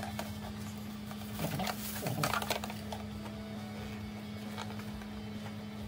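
Hands handling a black hard-plastic accessory and its plastic bag: a couple of short plastic rustles and clicks about a second and a half and two seconds in, over a steady low hum.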